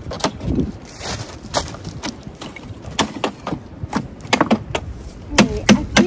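Irregular knocks and clatters of garden debris being moved about, sharpest and loudest near the end.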